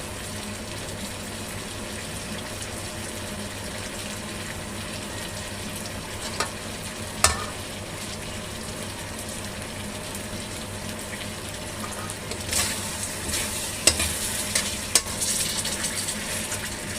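Chicken wings in a thickened honey-lemon sauce sizzling steadily in a pan, the sauce reduced and the wings cooked. A utensil clicks against the pan twice midway, then scrapes and clatters against it repeatedly in the last few seconds as the wings are stirred.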